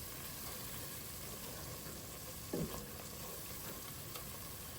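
Butter, flour and onions cooking in a pan as a roux, sizzling steadily while being stirred. A brief low sound stands out about halfway through.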